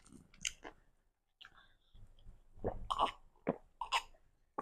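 Close-up eating sounds: a few mouth clicks while chewing, a short cough-like sound from the throat midway, then quick sips and swallows from a small glass near the end.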